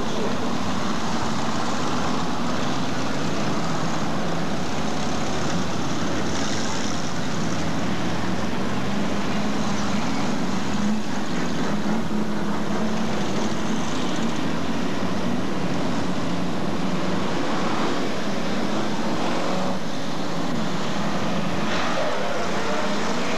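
Several hot stock car engines running together as the field circles the oval for a restart, revving up and down.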